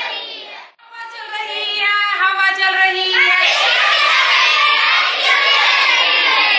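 A classroom group singing a song together, led by the woman teacher, in held, sung notes. The singing breaks off for a moment just before one second in, then carries on.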